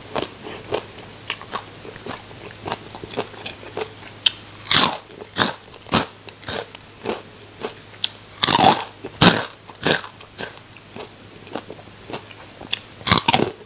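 Close-up chewing of crunchy deep-fried food: a steady run of small crisp crackles between bites, with louder crunches about five seconds in, around nine seconds and near the end.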